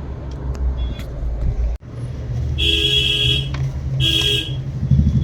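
Steady low rumble of a car on the road, then a car horn sounds twice: a blast of nearly a second, then a shorter one.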